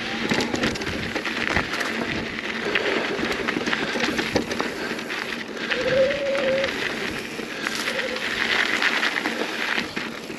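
Mountain bike rolling fast over rocky dirt singletrack: tyres crunching and hissing over grit and stones, with constant clicks and rattles from the bike. A brief wavering squeal comes about six seconds in.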